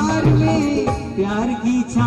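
Live Marwari devotional folk music (a bhajan), with a pitched melody line over dholak drum strokes.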